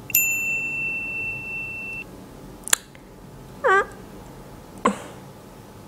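A steady, high-pitched electronic beep held for about two seconds, which cuts off sharply. It is followed by a click, a short falling-pitched "aaa" voice sound, and another click.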